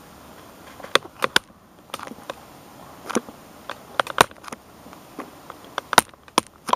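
Radio Shack 12-795 multiband receiver on the AM broadcast band, its speaker giving a low steady hiss broken by sharp, irregular crackles and pops of static, with no station coming through.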